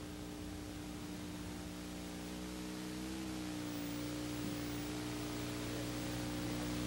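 Hiss and a steady electrical hum on a blank stretch of 1986 videotape, slowly growing louder; the hum's pitch wavers briefly about three seconds in.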